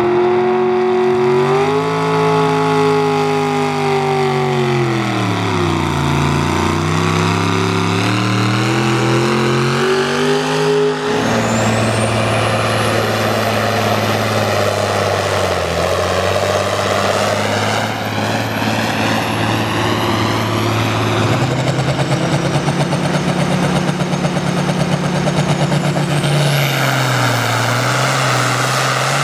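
Pulling-vehicle engines working hard under full load as they drag a weight-transfer sled: first a pickup truck, then a John Deere tractor, then a red International tractor. The engine pitch rises and falls, the sound changes abruptly about 11 and 21 seconds in as one run gives way to the next, and a high whine climbs steeply about 12 seconds in and again near the end.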